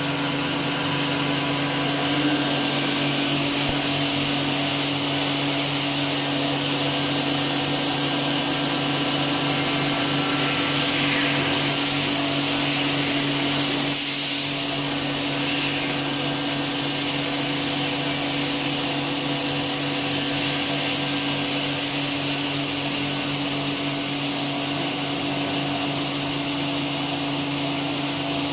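5-axis CNC machine running: a steady motor hum with a constant whine and hiss, even in level throughout.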